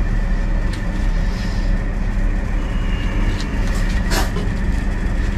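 A steady low mechanical hum, like a motor or fan running, with a few light knocks; the loudest knock comes about four seconds in.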